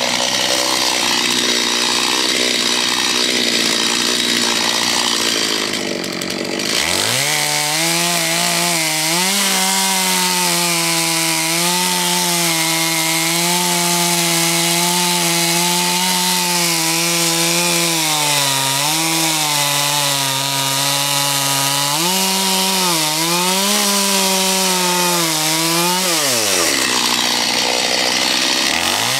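Stihl two-stroke chainsaw revving high, then dropping sharply in pitch about six or seven seconds in as the chain bites into the wooden stump. It cuts under load with its engine note dipping and recovering as it carves, and near the end it revs back up steeply as the bar comes free.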